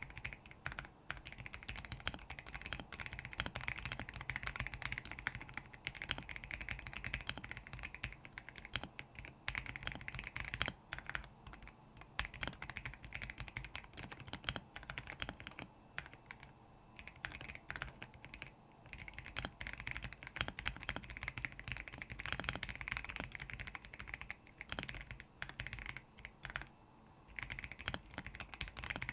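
Steady fast typing on a Royal Kludge R75 mechanical keyboard fitted with lubed RK Brown tactile switches: a dense run of keystroke clacks, broken by a few brief pauses.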